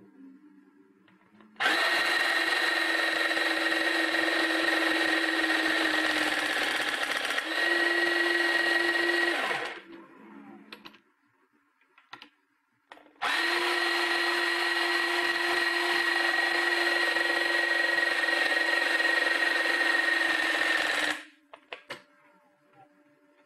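Motor of a battery-operated crimping tool running through two crimp cycles, each about eight seconds, with a few seconds' pause between. The pitch steps up slightly near the end of the first run, and each run cuts off sharply.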